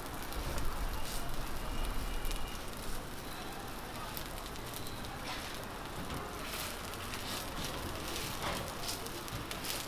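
Millet pancakes sizzling in oil on a flat-top griddle: a steady hiss with scattered crackles and a few louder hisses as they are pressed flat. A low rumble sits under the first few seconds.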